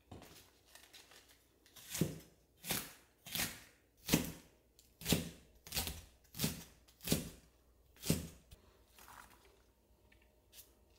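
Chef's knife slicing red cabbage into thin shreds on a plastic cutting board: a steady run of about nine strokes, roughly one every 0.7 seconds, starting about two seconds in and stopping a little after eight seconds.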